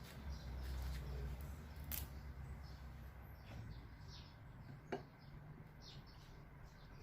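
Slime being handled and mixed: small soft squelches and clicks, with two sharper clicks about two and five seconds in, over a low hum.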